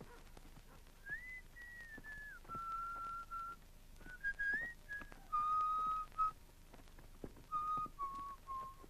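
A person whistling a slow tune, starting about a second in: long held notes with slides and small steps between them, mostly drifting downward.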